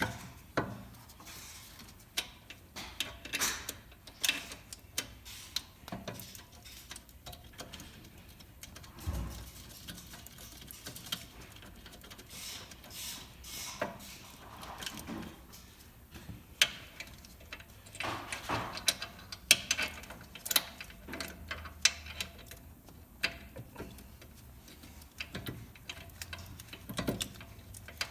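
Irregular metallic clicks, taps and clinks of hand work on a car's rear wheel hub: the new hub and bearing assembly being seated on the knuckle and its mounting bolts started.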